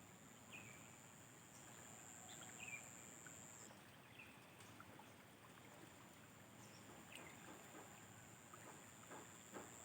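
Near silence: a faint steady high-pitched insect drone that breaks off briefly about four seconds in, with a few faint short chirps.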